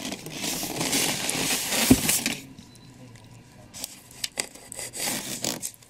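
Rigid styrofoam packing shell being handled and turned, rubbing and scraping against hands and cardboard, with one sharp knock about two seconds in; after a quieter moment come a few clicks and more scraping near the end.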